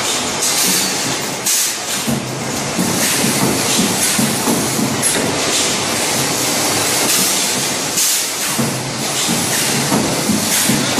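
Multi-spot wire mesh welding machine running through its weld cycle: a steady mechanical clatter broken every second or two by a burst of air hiss from its pneumatic electrode cylinders.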